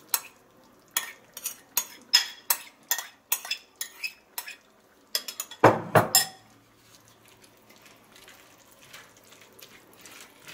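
Metal spoon clinking and scraping against a bowl in a run of sharp clinks as corn kernels are scooped into a stainless steel sauté pan. About six seconds in come two louder knocks, then soft, faint stirring with a wooden spoon.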